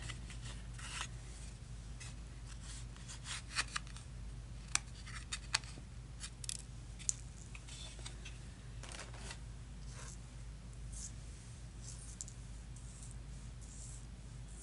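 Scattered small clicks, taps and scratches from hands handling small craft items on a desk, busiest in the first half and sparser later, over a steady low hum.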